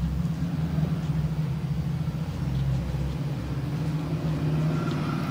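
A motor running with a low, steady hum and a deep rumble underneath; the rumble eases a little past halfway.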